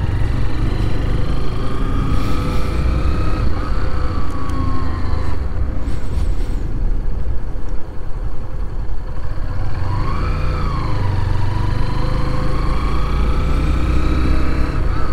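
Motorcycle engine running while riding, its pitch rising and falling with the throttle, with a clear rise and fall about ten seconds in.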